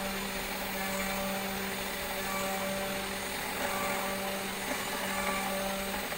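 CNC router spindle running at about 11,000 rpm, milling acrylic with a 3-flute end mill: a steady hum-whine over the hiss of the cut.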